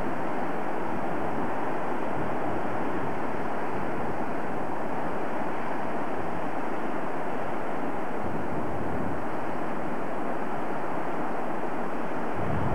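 Steady rushing of a mountain torrent tumbling over a small waterfall. Wind starts buffeting the microphone near the end.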